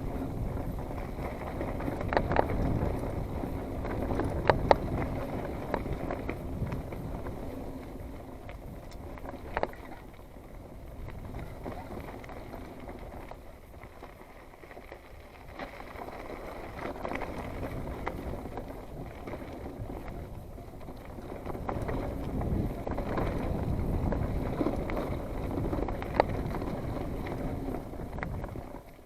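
Mountain bike rolling down a dirt singletrack: tire and trail noise with wind on the microphone, swelling and easing with speed, and a few sharp clicks and rattles from the bike over bumps.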